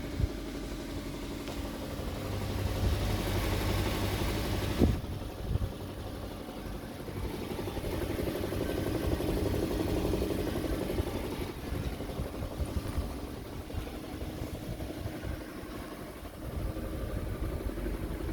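Audi Q7 4.2 FSI V8 engine running steadily, swelling louder a couple of times, with one sharp knock about five seconds in. It is an unexplained knocking noise that the owner is trying to diagnose.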